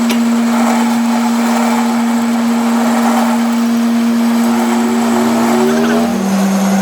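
Lathe running with a steady motor hum and whine; about six seconds in the hum steps down slightly in pitch.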